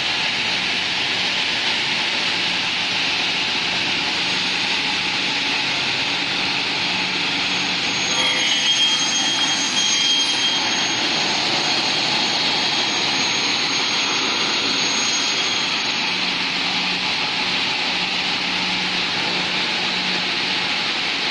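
Double-head aluminium profile cutting saw running with a steady rushing noise. From about four seconds in, a high whine joins it and lasts about twelve seconds before fading out.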